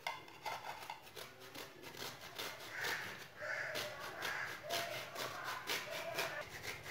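Dried coconut kernel being grated on a small flat metal hand grater: a run of short rasping strokes, about three a second. Between strokes some short, thin held tones come and go near the middle.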